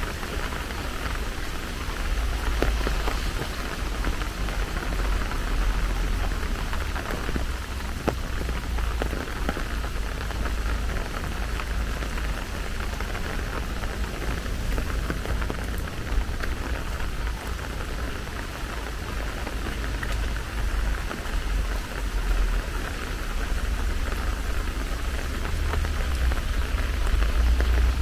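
Steady rain falling, an even hiss of many drops with scattered ticks, over a continuous low rumble.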